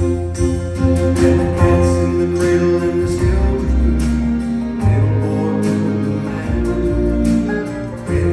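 Live bluegrass band with banjo, mandolin, guitars and fiddle, backed by an orchestra, playing a slow song: plucked strings over sustained chords and a changing bass line.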